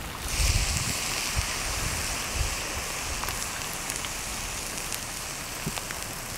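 Steady hiss with scattered faint crackles from a pahoehoe lava breakout steaming where it pours over rock and plants. The hiss comes in just after the start, with a few light gusts of wind on the microphone.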